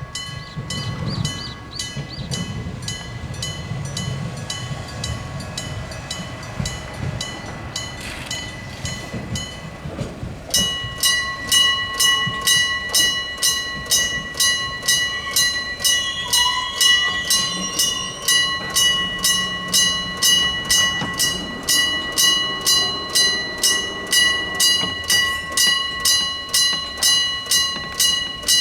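Electric gong level-crossing warning bell, a real bell struck by an electric hammer, ringing at about two strokes a second. A train's low rumble runs under it for the first ten seconds or so. After that the bell is suddenly louder and clearer.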